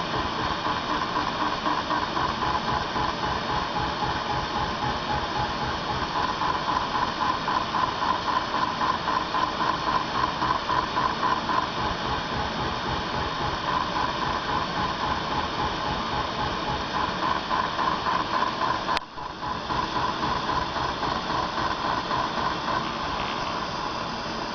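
Automatic wire bonder running: rapid, even mechanical ticking over a steady hiss. It breaks off briefly about three-quarters of the way through.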